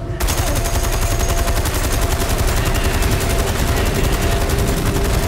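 Deck-mounted machine gun on a boat firing one long, rapid, even burst. The burst starts a moment after a brief drop in sound.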